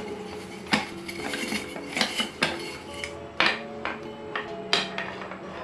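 Hard-anodized aluminium cook pot and its lid handled while being taken out of a mesh bag: several light clinks and knocks of metal, over soft background music.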